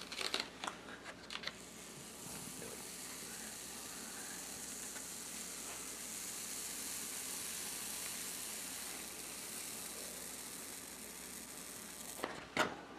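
Printing paper being peeled slowly off a freshly inked woodblock, the tacky ink giving a steady hiss as it lets go for about ten seconds, after a few short paper rustles at the start.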